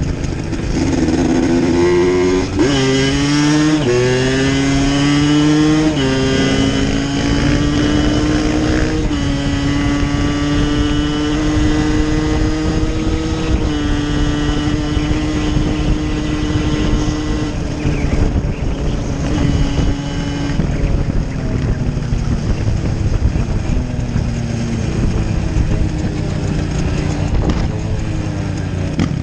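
Dirt bike engine accelerating through the gears: the pitch climbs and drops back at each of about three upshifts in the first six seconds, then holds steady for about ten seconds before easing off to a lower note.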